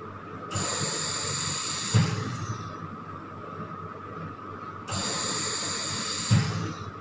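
Aeonmed anesthesia machine's bellows ventilator cycling: two breaths about four and a half seconds apart. Each is a hiss of gas about a second and a half long that ends in a low thump.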